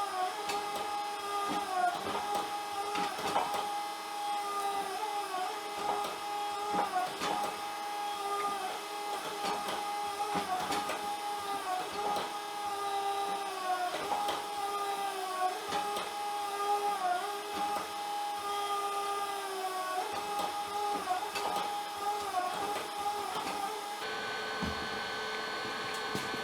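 Electric-motor-driven hydraulic pump of a log-splitter forging press running with a steady whine that sags in pitch again and again as the press takes load, with scattered knocks; near the end the whine changes to a different steady tone.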